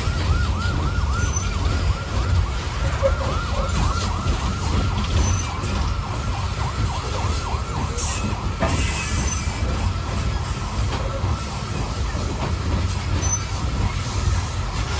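Freight train of coal hopper cars rolling past close by with a steady low rumble. Over it, a yelping siren sweeps up and down about four times a second, fading out a little past halfway.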